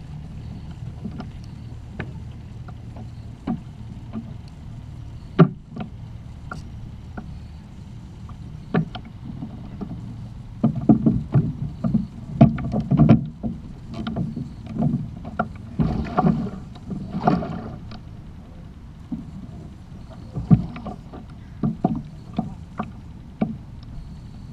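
Water lapping against a plastic Hobie kayak hull as an angler plays and nets a hooked Columbia River spring Chinook salmon. Scattered knocks and clatter from the rod and landing net come through it, with busier stretches of knocking and splashing about halfway through.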